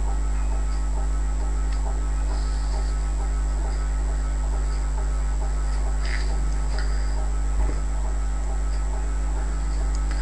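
Steady electrical mains hum with a faint constant high whine above it, and one brief bump about three quarters of the way through.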